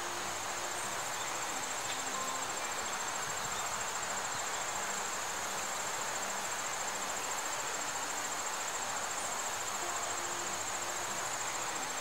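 Insects trilling steadily in a high, finely pulsing chorus over a constant hiss.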